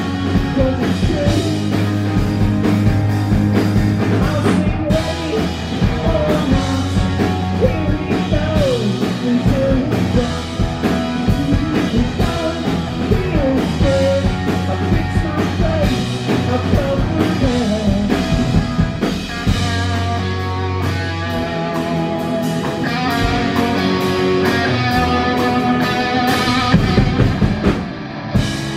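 Live rock band playing: electric guitars, bass guitar and drum kit with a male lead vocal singing over them, heard through the venue's sound system.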